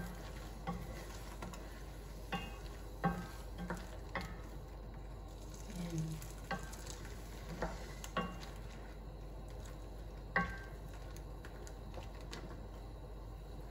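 Wooden spoon stirring in a non-stick pan of sponge gourd and lobster pieces, giving a dozen or so irregular light knocks against the pan, over a low steady sizzle as hot water from a kettle is poured in.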